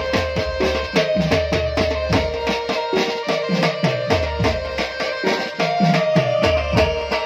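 Live Indian folk music played through PA loudspeakers: a keyboard holding steady melody notes over a fast, even tabla-style drum beat whose bass strokes fall in pitch. An instrumental passage with no singing.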